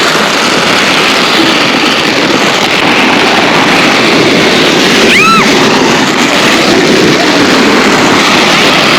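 Steady rushing noise of a sled run down a snowy hill, with the sled sliding over snow and air rushing past the microphone. A short, high squeal of a rider's voice comes about five seconds in.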